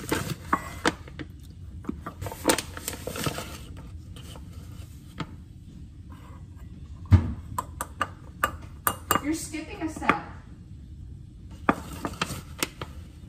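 Kitchen clatter: utensils clinking and knocking against a stainless steel mixing bowl in irregular strikes, with a heavier thump about seven seconds in.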